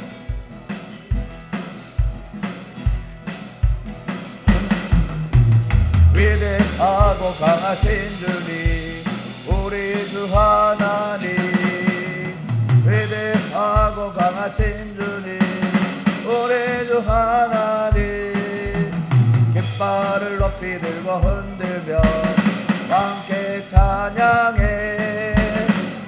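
Electronic drum kit played in a steady beat, with kick drum, snare and rimshot hits, alongside a strummed acoustic guitar; a wavering melody line joins about six seconds in.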